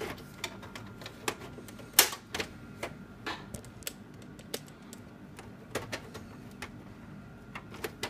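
Irregular clicks and knocks of plastic and sheet metal as a disk drive is unlatched and lifted out of a Dell Dimension C521 desktop case. The sharpest knock comes about two seconds in.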